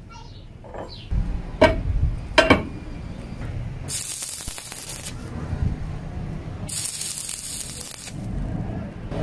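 Stick-welding arc crackling and hissing in two bursts of about a second each, the first about four seconds in and the second about seven seconds in. Before them, two sharp metal knocks come close together.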